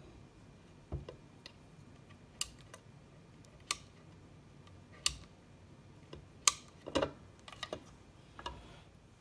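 Scattered sharp clicks and light knocks as a small flat wrench works the threaded rubber boot of a toggle switch on a plastic VFD enclosure panel, then the enclosure's cover is handled and opened. The clicks come singly, a second or so apart, with the loudest about six and a half seconds in and a quicker cluster after it.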